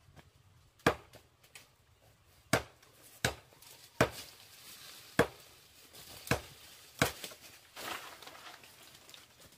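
Chopping with a blade: seven sharp strikes at uneven intervals, with a short rustle near the end.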